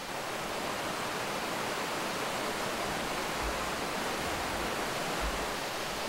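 Steady rush of water running over rocks in a mountain stream.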